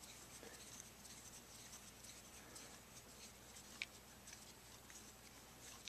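Near silence with faint scratching and small ticks from a screwdriver turning a mixture adjustment screw into a small two-stroke trimmer carburetor, with one sharper tick about four seconds in.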